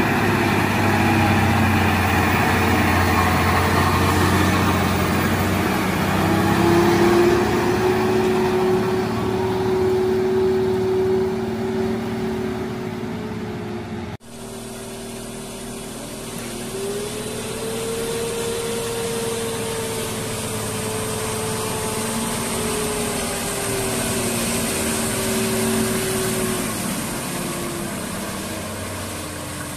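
Loaded multi-axle lorry's diesel engine working hard on a dusty hill road, its note rising and falling as it pulls. There is an abrupt cut about halfway through, after which another stretch of truck engine sound follows.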